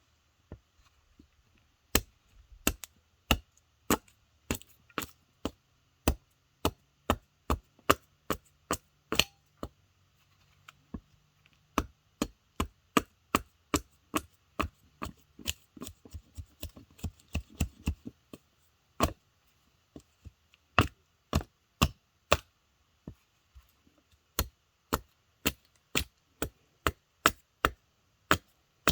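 Wood being chopped: a long run of sharp separate chops at an uneven pace, coming fastest in the middle stretch.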